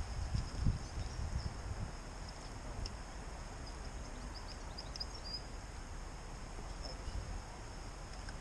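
Wind rumbling on the microphone for the first second or so, then a steady outdoor hiss with faint birds chirping around the middle.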